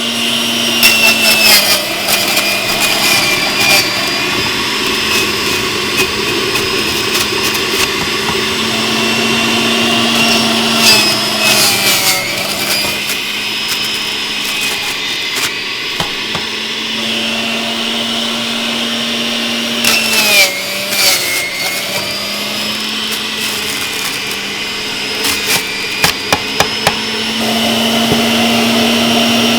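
Breville centrifugal juicer running on its high setting, shredding celery stalks; the motor hum sags in pitch each time stalks are pushed down into it, about every ten seconds, then climbs back up. Sharp crunching crackles come as the celery is cut.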